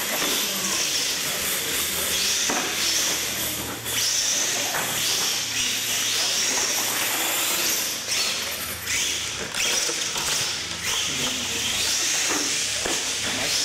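Electric R/C monster trucks racing on a concrete floor: a continuous high motor-and-gear whine that rises and falls several times as the trucks speed up and slow down, over a steady hiss of tyres on the concrete.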